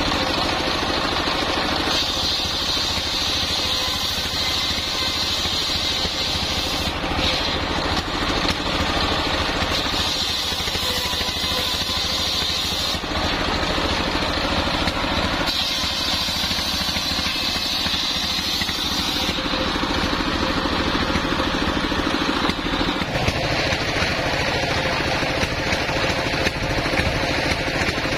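Stationary engine steadily running a belt-driven circular saw blade, which cuts coconut-palm timber in three passes, a high saw whine rising over the engine during each cut.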